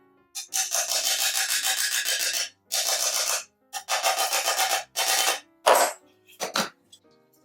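Hand file rasping on metal: four long strokes, then two short ones.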